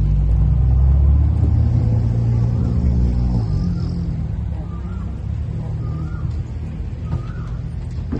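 Motor vehicle engine running with a heavy low rumble, its pitch shifting about three and a half seconds in. Faint short wavering chirps sound in the second half.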